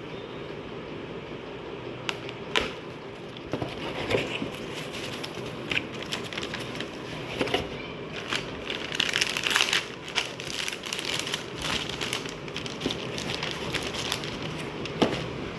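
Crinkling and rustling with scattered clicks and taps from hands handling small parts and plastic, busiest about nine to twelve seconds in.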